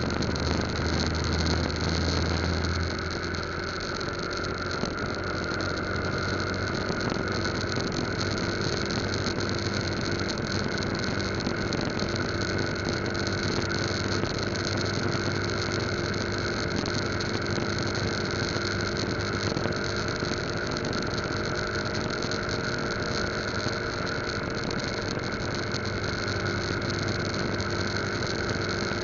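Yamaha Lagenda 115Z underbone motorcycle's single-cylinder four-stroke engine running steadily at highway cruising speed, with a steady rush of noise around it. It is a little louder and deeper for the first three seconds, then evens out.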